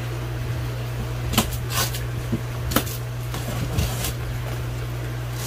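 Clear plastic stretch wrap crinkling and tearing as it is pulled off a large cardboard shipping box, with a few sharp rustles and bumps over a steady low hum.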